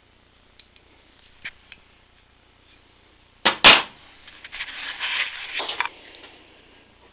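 Hand tools and moped clutch parts being handled: a few light clicks, then two sharp clacks about three and a half seconds in, followed by a second and a half of scraping and rattling.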